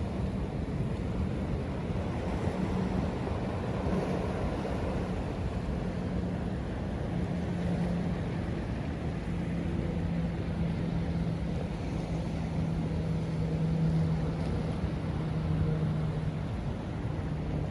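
Ocean waves washing steadily, with wind buffeting the microphone and a steady low engine hum whose pitch sags slightly partway through.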